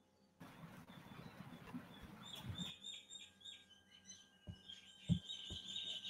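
Faint birds chirping in quick, repeated short high notes, starting about two seconds in, over a soft hiss. Several soft low knocks come in the last two seconds.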